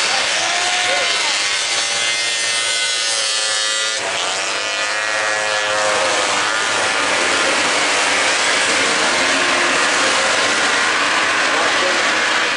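Several small youth race snowmobiles running on a snocross track, their engines revving so the pitch rises and falls, over a steady wash of engine and track noise.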